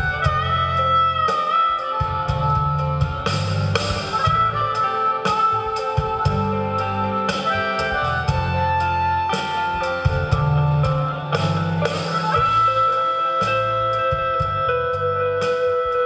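Live blues-rock band playing an instrumental passage: a harmonica played into a vocal microphone holds long notes over electric bass, drum kit and electric guitar.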